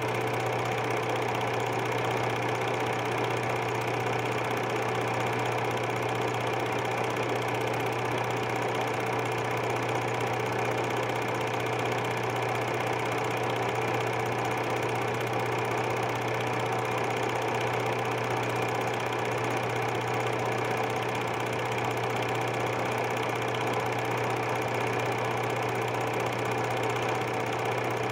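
Super 8 film projector running steadily, its mechanism giving a constant low hum under an even mechanical whirr.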